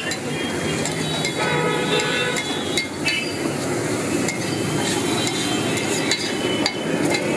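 Metal spatula repeatedly chopping and scraping on a flat iron tawa griddle, mashing boiled eggs with masala, in a steady run of clanks and knocks.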